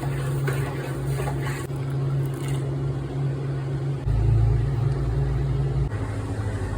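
Steady electric motor hum of a kitchen appliance. About four seconds in it drops lower and gets louder for nearly two seconds, then settles back, and it stops abruptly at the end.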